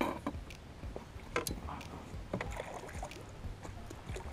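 A few sharp knocks and clatter of gear being handled in a small fishing boat as a landing net is reached out over the water, over a steady low rumble.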